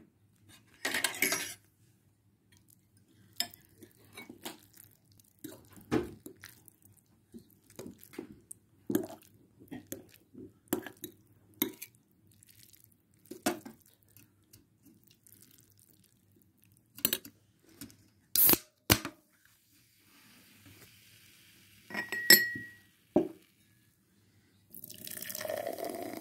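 A metal fork clinking and scraping against a ceramic plate, in separate short knocks every second or so with a few louder strikes. Near the end a fizzy drink is poured into a glass, a steady foaming hiss.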